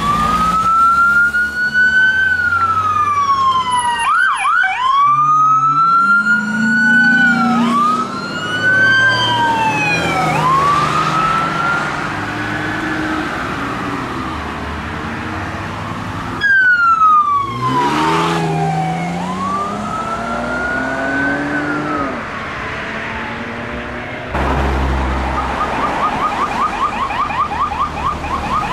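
Several police and ambulance sirens sounding as the units pass, overlapping one another. Mostly slow wails rising and falling, with a quick yelp about four to five seconds in, a steep wind-down in the middle, and a rapid pulsing tone near the end.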